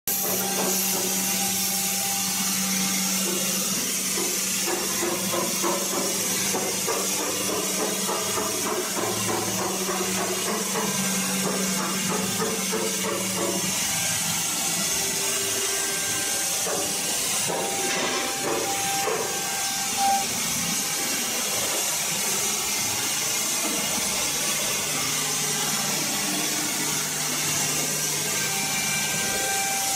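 Air-cooled spindle of a 3-axis CNC router running and cutting a wood panel: a steady high hiss over a low hum, the hum dropping in pitch a little past halfway.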